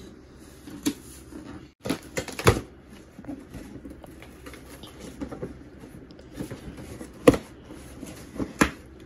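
A package being opened and its contents handled: scattered knocks and clicks over light rustling, with a cluster of knocks about two seconds in and the sharpest single knock about seven seconds in.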